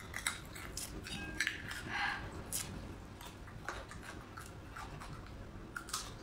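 Dry papery skin being peeled off a garlic bulb by fingertips, close to the microphone: irregular sharp crackles and clicks with soft rustling.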